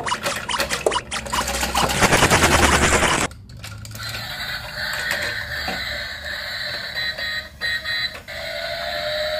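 Battery-powered toy bus running: a loud, fast mechanical rattle of its motor and gears for about three seconds, which stops abruptly, followed by quieter high electronic tones from the toy.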